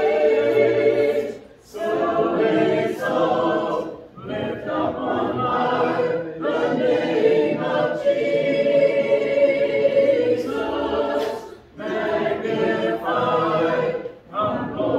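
A congregation of mixed voices singing a hymn a cappella in harmony, with no instruments. The sung phrases are held and separated by short breaks for breath.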